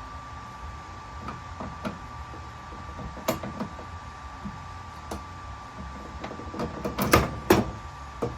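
Metal parts of a paper cutter being handled and worked loose during disassembly: scattered clicks and knocks, growing busier near the end with a few louder knocks. A faint steady high hum runs underneath.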